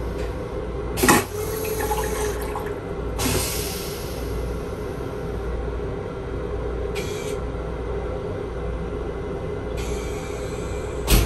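Train toilet flushing: rinse water swirling around a stainless steel bowl, over the steady hum of the running train. There is a sharp knock about a second in and a loud thump near the end.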